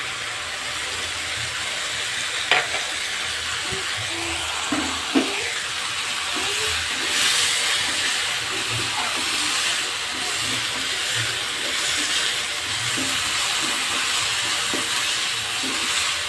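Green beans, chillies and fried anchovies sizzling in a hot wok while a spatula stirs and tosses them, with two sharp knocks in the first few seconds.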